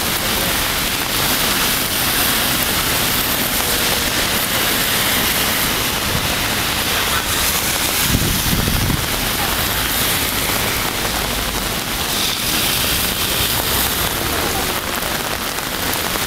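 Steady rain falling on wet pavement, with a brief low rumble about eight seconds in.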